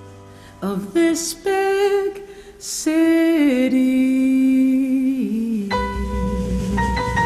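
A recorded song playing: a singing voice holds long, sliding notes, then a low bass and bell-like mallet notes come in about six seconds in.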